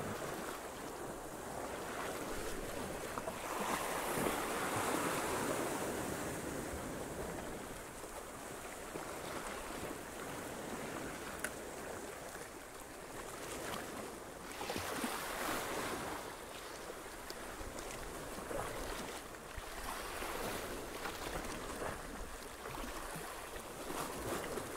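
Small sea waves washing and splashing against shoreline rocks, swelling and easing every few seconds.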